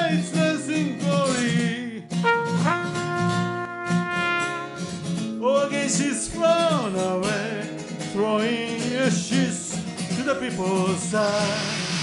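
Live song: a man singing over acoustic guitar, with a cornet playing along.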